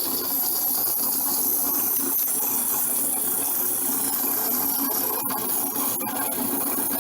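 Drill press motor running with a steady hum while emery cloth is held against the spinning disc handle, a continuous rubbing hiss as it sands the edge smooth.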